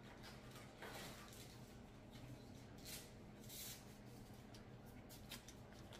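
Near silence: room tone with a low hum and a few faint, brief rustles.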